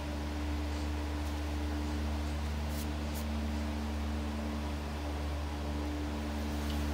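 Steady low hum and hiss of room tone, with two faint light clicks about three seconds in.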